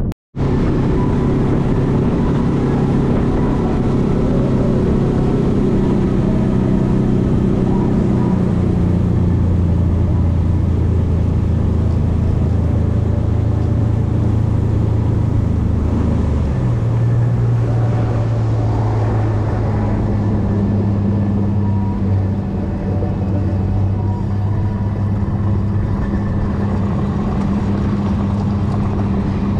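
Motorboat engine running under way, its steady note shifting a few times, over a steady hiss. The sound drops out for an instant just after the start.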